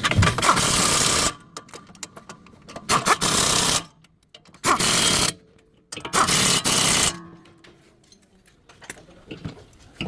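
Pneumatic impact wrench run in four bursts of about a second each, its hammering rattle starting and stopping abruptly, as on wheel hub bolts.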